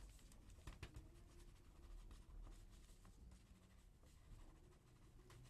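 Faint scratching of a pen writing on paper, over quiet room tone.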